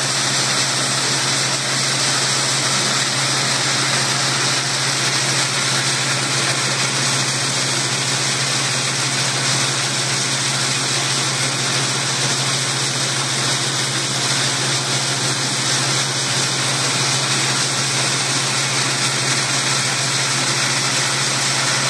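A seed-cleaning gravity table running steadily as soldier beans feed onto its deck. It makes a constant machine hum with an even hiss over it.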